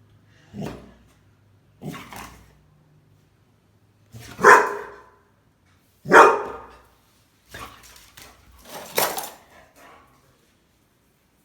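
Labrador barking: single barks spaced a second or two apart, the two loudest in the middle, then it stops.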